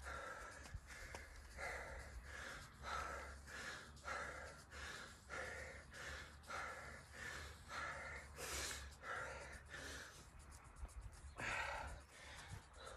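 A man breathing hard and fast from exertion, about two sharp breaths a second, while doing bodyweight squats deep into a conditioning workout, with a couple of heavier exhales near the end.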